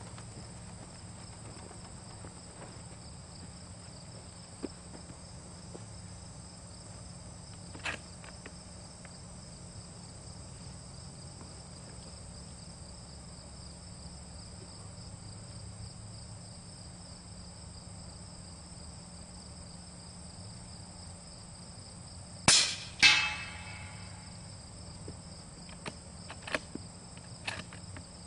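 Steady insect chirring throughout. About 22 seconds in, one shot from a .30 cal rifle with an OPS Inc. 3rd Model suppressor firing a subsonic load, then about half a second later the ringing ping of the bullet hitting a steel silhouette target. A few light clicks come before and after.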